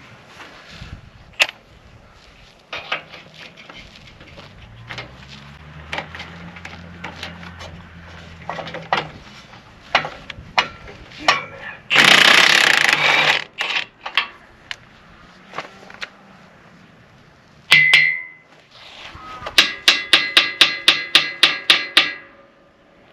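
Scattered metal clanks and knocks from work on a disc harrow's disc gang, with a loud rushing noise lasting about a second and a half midway. Near the end comes a quick run of about a dozen ringing hammer blows on steel, five or six a second.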